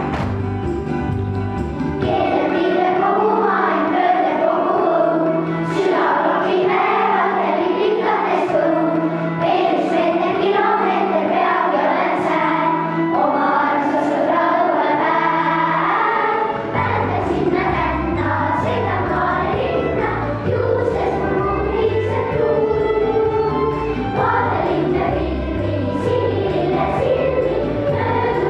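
Children's choir singing a song with instrumental accompaniment. The low bass part drops away early on and comes back about two-thirds of the way in.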